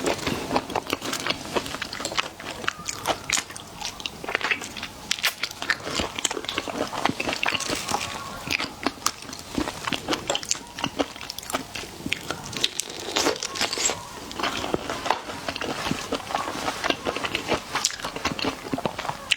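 Close-miked ASMR eating of seafood: repeated crunchy bites and wet chewing, many small clicks and crackles in an irregular stream.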